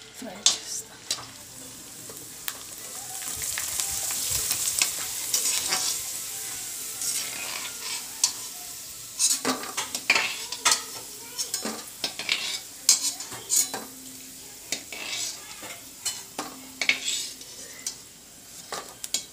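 Dried onion-ring fryums sizzling as they deep-fry in hot oil in an aluminium kadai, a metal spoon stirring them and scraping and knocking against the pan. The sizzle swells a few seconds in; from about nine seconds in, repeated knocks and scrapes come as the fried rings are lifted out.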